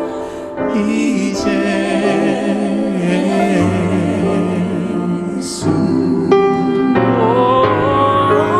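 Gospel worship song in a Beninese language: voices singing over keyboard accompaniment, with a cymbal stroke now and then.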